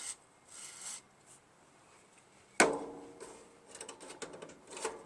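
A short hiss of aerosol WD-40 spray, then a sharp clunk about two and a half seconds in, followed by light clicks and rattles as the freshly lubricated garden-tractor seat hardware is worked.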